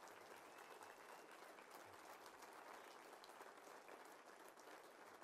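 Faint audience applause, many hands clapping steadily as a speaker is welcomed to the stage.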